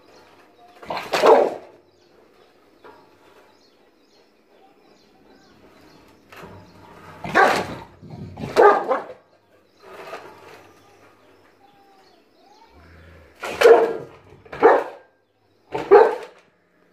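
A St. Bernard barking aggressively in about six loud, separate barks, two of them close together in the middle and three in a quick run near the end, as it snaps at a stick poked toward it.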